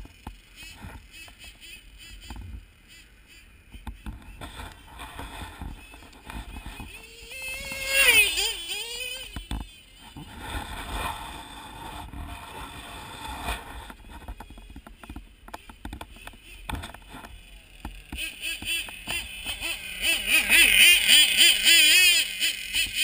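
Snowmobile engine revving in passes. About eight seconds in, a whine rises and falls in pitch. Near the end it runs louder and closer, its pitch wavering.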